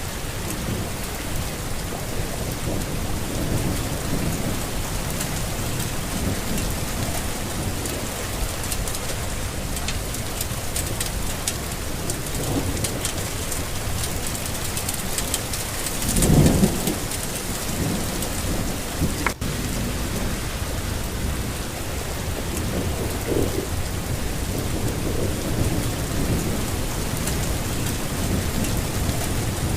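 Steady rain falling, with a swell of thunder rumble a little past halfway through.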